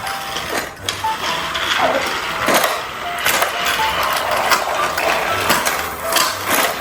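Plastic toy train playset clattering and rattling as it is played with, with many small clicks and a few short tones.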